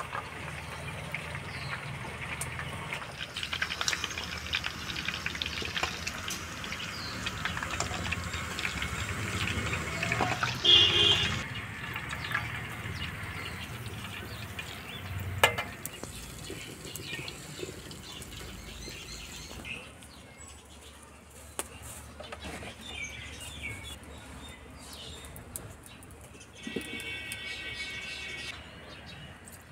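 Chicken pieces sizzling in hot oil in a pan for the first twelve seconds or so, then quieter, with occasional clinks and knocks of utensils and birds chirping now and then.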